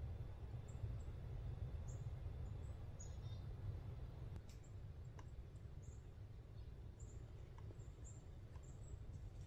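Small songbird giving a string of short, very high, thin chirps at irregular intervals over a low steady rumble of ambient woodland noise. A few faint ticks come about halfway through.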